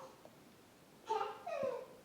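A short high-pitched vocal call about halfway through, whose pitch slides downward near its end.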